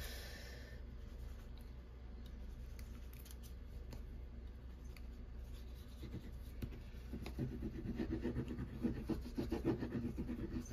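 The tip of a liquid glue bottle rubbing and scratching across cardstock as glue is spread over the panel. The strokes are faint at first, then grow louder and quicker over the last few seconds.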